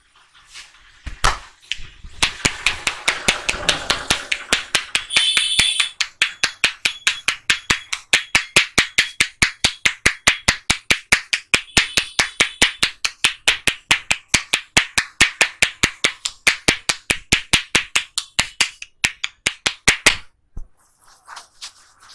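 Massage tapping: the barber's hands strike a person's head in a fast, even rhythm of about four sharp slaps a second, stopping abruptly near the end.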